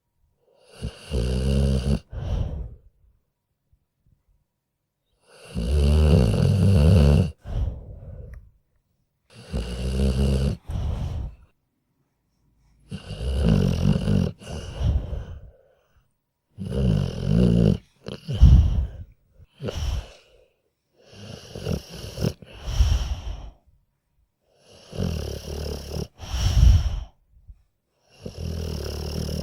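A sleeping dog snoring: regular snores about every four seconds, with silent pauses between breaths.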